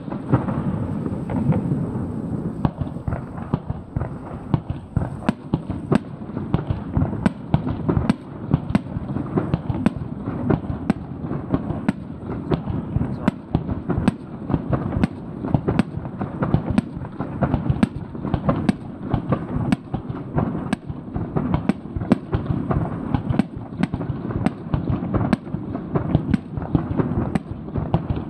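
Aerial firework shells bursting in a dense, unbroken barrage: sharp cracks come several times a second over a steady rumble of booms.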